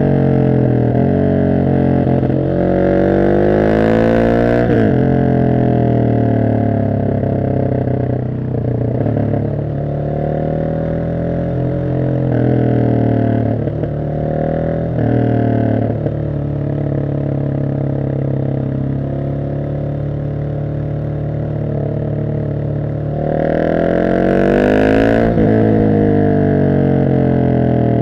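Husqvarna 701 SM's single-cylinder engine through an Arrow exhaust, decatted with the dB killer in, out on a ride. Several bursts of acceleration come first, the pitch rising and dropping at each gear change, then it eases off. A steady cruise at constant revs follows, then a hard pull near the end before the revs fall again.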